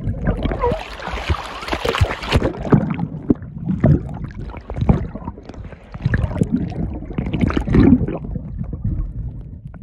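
Underwater sound from a camera moving through the water: muffled rushing and gurgling water with irregular knocks and thumps, and a hissing rush in the first two seconds or so.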